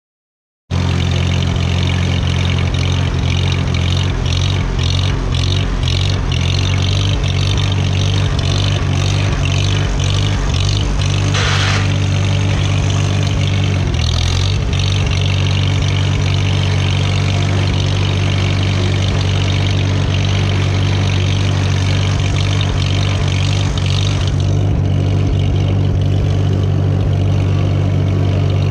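1942 Farmall H tractor's four-cylinder gasoline engine running steadily as the tractor drives along. The sound starts abruptly just under a second in. A rapid rattling clatter rides over the engine for about the first ten seconds, a short hiss comes about eleven seconds in, and the engine note dips briefly a few seconds later.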